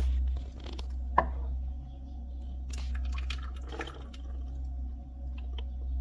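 Thick fig leaf oil pouring in a thin stream into a glass bottle, with a soft liquid trickle and squish. A single sharp click comes about a second in, over a steady low hum.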